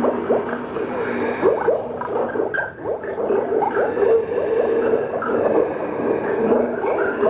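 Gurgling, bubbling sound effect played from an old Halloween sound-effects cassette: a dense stream of short rising blips over a steady hum, dipping briefly about three seconds in.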